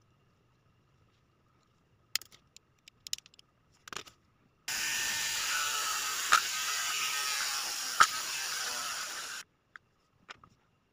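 Handheld mini rotary tool (mini drill) running for about five seconds, its bit drilling into the plastic case of a correction tape dispenser, with two sharp clicks partway through. A few light handling clicks come before it starts.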